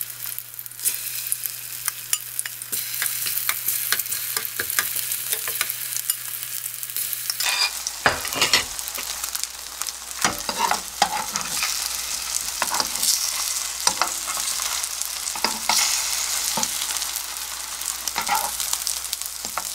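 Egg-coated pink sausage slices sizzling in oil in a non-stick frying pan over low heat, with repeated clicks and scrapes of a metal spoon against the pan as the slices are turned, more frequent after about eight seconds.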